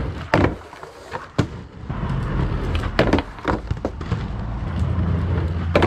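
Aggressive inline skates rolling on asphalt and grinding a 2-inch PVC pipe rail, with several sharp knocks as the skates strike and land on the pipe over a steady rumble of wheels and sliding.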